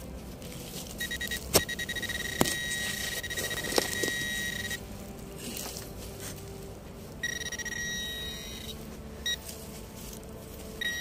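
A metal detector's pinpointer sounding a steady high tone for about four seconds, then again for about a second and a half, with short beeps in between, as it picks up a buried metal target. Its tone is joined by a few sharp knocks from digging in the soil.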